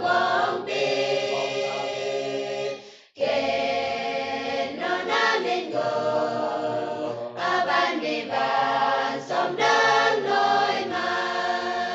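Choir of young men and women singing a Naga hymn together. The singing cuts off abruptly about three seconds in and resumes at once, at an edit.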